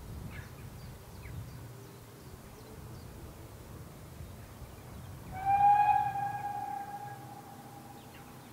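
Steam whistle of GWR Small Prairie tank engine No. 4555, blown once about five seconds in: a single steady note, loud for about a second, then trailing off over a couple of seconds. Under it a low background rumble and a few faint bird chirps.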